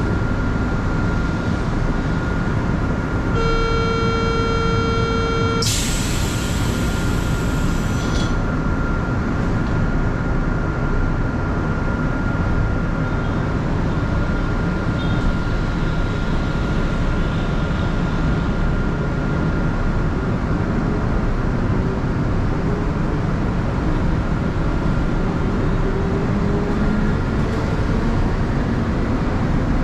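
Metro train: a steady buzzy warning beep for about two seconds, then a burst of air hiss lasting a couple of seconds, the sequence of a door-closing warning and pneumatic doors. Steady running and rumble noise sits underneath throughout. From about two-thirds of the way in, a motor whine slowly rises in pitch as the train gathers speed.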